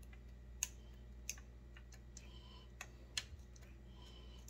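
A handful of faint, sharp metal ticks and scrapes as a small hand-held drill bit works in the clogged decompression-valve hole of a McCulloch PM 700 chainsaw's cylinder, clearing out the blockage.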